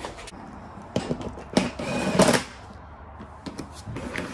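Cordless drill-driver running in a few short bursts, driving fixings to secure a fog light into a plastic bumper, with clicks and knocks from handling the bumper in between.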